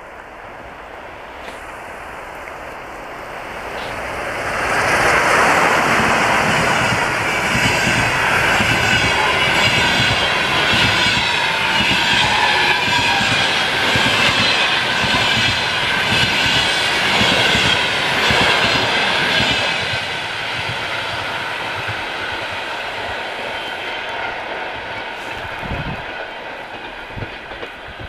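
EP2K electric locomotive and its passenger coaches passing close by. The sound swells as the locomotive goes past about four seconds in, then the coaches' wheels clatter rhythmically over the rails, fading out over the last several seconds.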